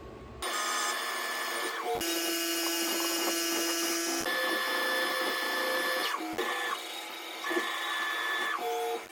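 Tormach 1100MX CNC mill running a machining job: the spindle and axis motors make a steady whine of several tones that jumps to a new pitch in steps every two seconds or so, with a click at each change.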